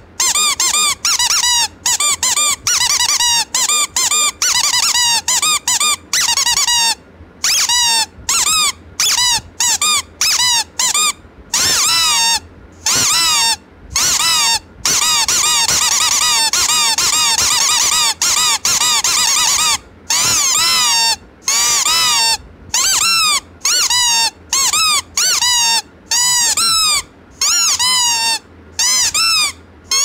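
Rubber squeeze toys squeaking over and over. Each squeak is a short whistle that rises and falls in pitch, coming about two or three a second, with a longer run of squeaks strung together in the middle.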